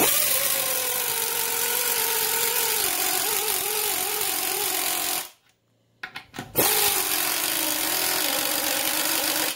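Harbor Freight EarthQuake 3/8-inch impacting reactionless air ratchet running under load on a fastener in a wooden block, its built-in impact mechanism working the fastener. It runs in two long bursts with a short pause about five seconds in, the pitch sagging slightly during the first burst.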